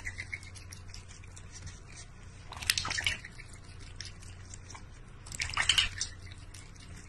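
Water splashing and dripping in a large stainless steel bowl as a duck and a cat drink from it, with two short splashy bursts about a third of the way in and again near the end.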